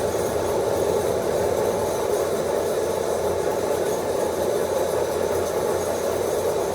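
A motor vehicle running steadily, a constant engine drone with some rattling and vibration.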